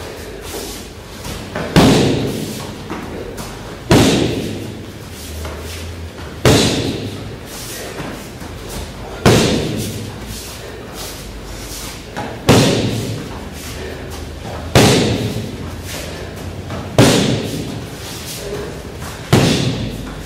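Boxing glove striking a handheld focus mitt: rear straight punches (the punch), landing eight times about every two and a half seconds, each a sharp smack that echoes briefly through the hall.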